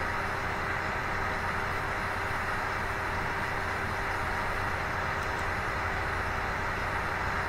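Steady background noise: an even hiss with a faint steady hum, unchanging throughout, with no distinct events.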